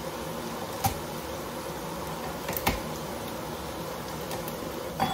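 Bacon sizzling in a cast iron skillet, a steady hiss, with three sharp knocks of a knife on a chopping board as garlic is cut.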